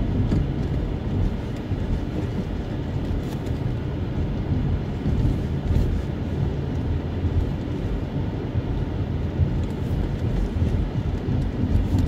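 Car driving slowly on a road, heard from inside the cabin: a steady low rumble of engine and tyres.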